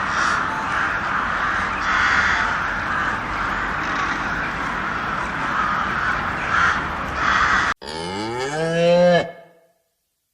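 Repeated harsh calls over a steady noisy background, then, after a sudden cut near the end, a cow gives one long moo that rises in pitch.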